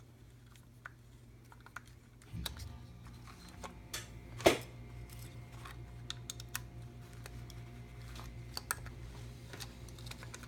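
Small clicks and taps from handling a guitar effects pedal and its parts on the bench. About two seconds in, a low electrical hum comes on and stays, and one louder knock falls about halfway.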